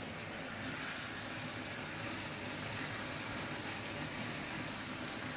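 Tomato sofrito simmering in a frying pan: a steady hiss of cooking.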